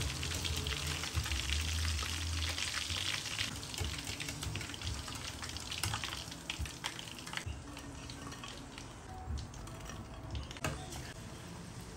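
Coated chicken pieces deep-frying in hot oil in a metal karahi, sizzling steadily, with a few light clicks of a wire spider strainer against the pan as the pieces are scooped out. The sizzle eases a little in the later part.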